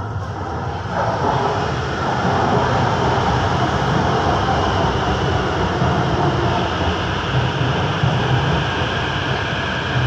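Série 500 (fleet F) metro train running into the station, a steady noise of wheels on rail that grows louder about a second in as it comes alongside. There is no electric-braking whine from the traction inverters: the uploader says the inverter on this train feeds traction only, so it stops on its pneumatic (air) brakes alone.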